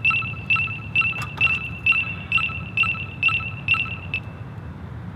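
Lime electric scooter beeping, a high beep repeated about twice a second that stops about four seconds in. The beeps come as the scooter stays locked and won't start.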